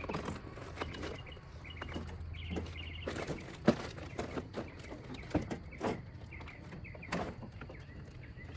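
Scattered sharp clicks and knocks of a plastic front bumper cover being worked loose by hand, one louder snap about halfway through. A bird chirps in the background.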